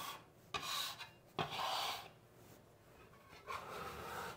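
Stainless steel bench scraper dragged across a wooden butcher-block counter, gathering spilled flour, in a few short scraping strokes.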